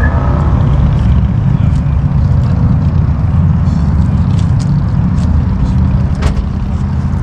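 A car engine running with a steady low rumble, and a single sharp click about six seconds in.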